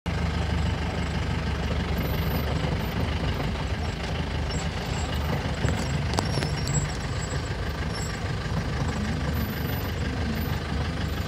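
Vehicle engine idling steadily, with a faint click or two about six seconds in.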